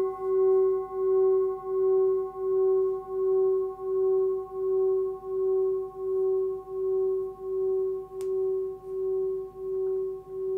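13.8 cm forged Sun Moon singing bowl, tuned to about 380 Hz (F sharp), ringing on and slowly fading. Its main tone wobbles in loudness about one and a half times a second over fainter higher overtones.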